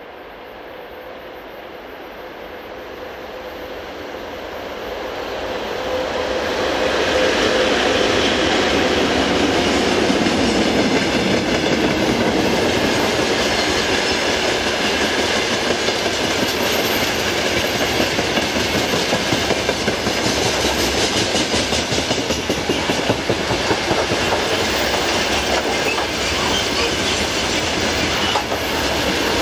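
VL80S electric locomotive approaching and passing at the head of a freight train, growing louder over the first seven seconds, then the steady rumble and rhythmic wheel clatter of open-top freight wagons rolling past.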